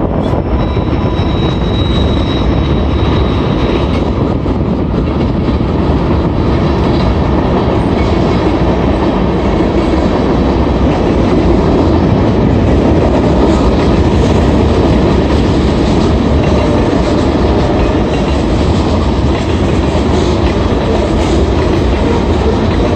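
Freight train of hopper and tank cars rolling past close by through a level crossing: a loud, steady rumble of steel wheels on the rails. A thin high squeal sits over it for the first few seconds.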